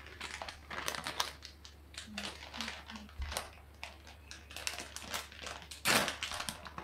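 Plastic packet of cheese crinkling and rustling as it is handled and opened, in many short irregular crackles, with the loudest rustle near the end.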